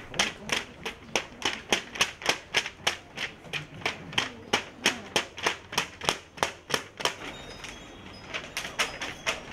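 A hand slapping a sheet of paper held up in the air, a quick run of sharp papery slaps about four a second. The slaps grow softer and fewer near the end.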